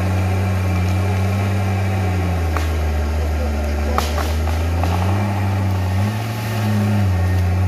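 Crawler tractor's diesel engine running hard as the bulldozer pushes earth and stumps with its blade. The engine note sags for a few seconds after about two seconds in, then picks up again near the end, with a few sharp knocks in the middle.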